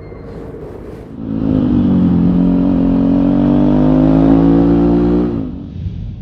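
Jawa 42 motorcycle's single-cylinder engine revved up about a second in and held at a steady, slowly rising pitch for about four seconds, then eased off near the end.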